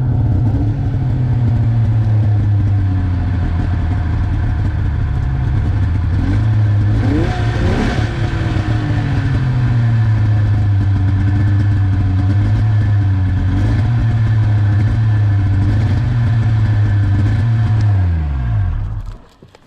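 Snowmobile engine idling steadily, with a brief rise in revs about seven seconds in. It is then shut off near the end, its note falling away as it winds down. The rider puts the better idle down to driving on the road having cleaned out the carburetor.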